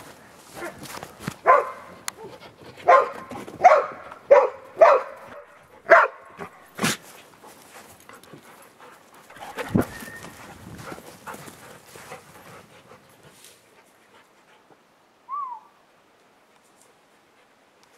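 Dogs barking while they play: a series of short, sharp barks over the first seven seconds, then quieter noise that fades to near silence after about 13 s, with one brief high chirp near 15 s.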